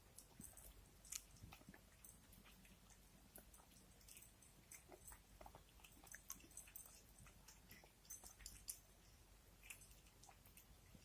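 Cats eating: faint, irregular chewing clicks and crunches.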